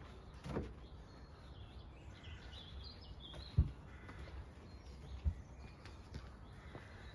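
Quiet outdoor background with small birds chirping between about two and three and a half seconds in, and a few short, soft low thuds, the strongest about halfway through.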